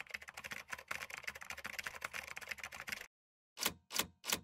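Typing sound effect: a quick, continuous run of key clicks for about three seconds that stops abruptly, then after a short pause three separate key strikes.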